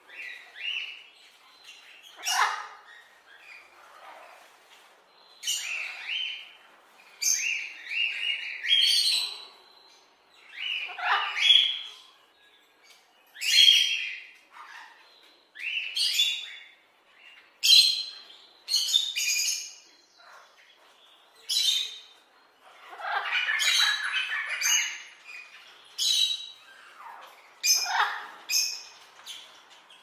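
Parrots calling: short, high-pitched calls, one every second or two, some in quick pairs, with a longer run of calls about three-quarters of the way through.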